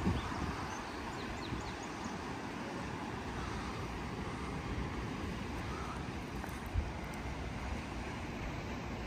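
Steady outdoor background noise over the sea cliffs, with a single short low thump about seven seconds in.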